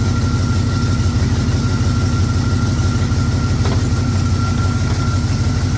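1976 Jeep J10 engine idling steadily with its air-conditioning compressor engaged, a loud low rumble with a thin, steady high whine over it.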